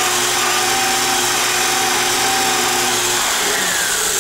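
Otto Arc portable beveling machine running with its cutter on the end of a 3/4-inch pipe elbow, a steady loud whine of motor and cutting. The steady hum drops out about three seconds in, and a falling whine follows near the end.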